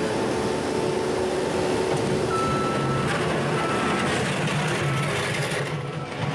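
New Holland C232 compact track loader running under load, its engine and hydraulics loud and steady. From about two seconds in, a short high beep repeats about once a second, like a backup alarm.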